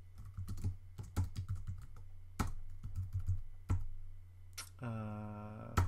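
Typing on a computer keyboard: irregular keystrokes entering a command line. Near the end a steady pitched hum sounds for about a second, cut off by a sharp key tap.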